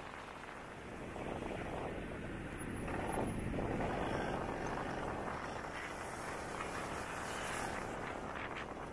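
Kymco AK 550 maxi-scooter riding in city traffic: engine and wind noise as a steady rushing drone that swells around three to four seconds in.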